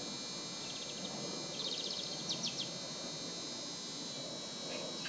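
Steady outdoor hiss under a constant high-pitched whine, broken about a second in by a small bird's quick trill of rapid chirps that ends in three sharper notes.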